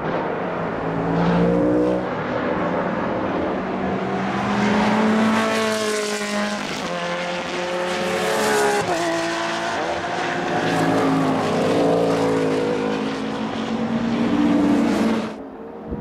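Racing car engines at high revs as several race cars drive past one after another, the pitch climbing under acceleration and dropping sharply at gear changes. The sound falls away abruptly about a second before the end.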